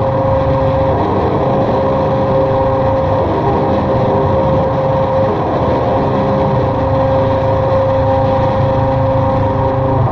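Experimental drone music: a dense, steady wash of low droning tones with a held note over it, and no voice.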